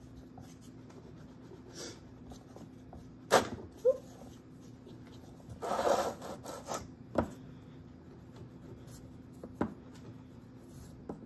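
Hands working and rolling a piece of clay on a stone board: soft rubbing and handling noise, with a sharp knock about three seconds in and a longer scraping rub around six seconds.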